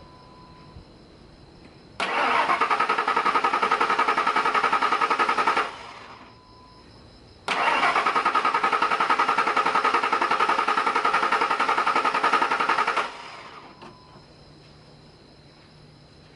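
Starter cranking a 2001 Ford Expedition's 4.6-litre Triton V8 twice, about four and then five and a half seconds, with a fast even pulse; the engine never fires. Crank-no-start: the spare key's chip was not programmed properly, so the anti-theft system stops the engine from starting.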